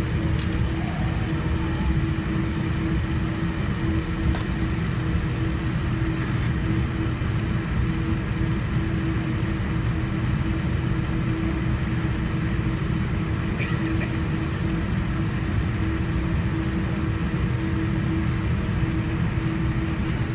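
Cabin noise of a Boeing 787-9 airliner: a steady low rumble with an even engine hum, unchanging throughout.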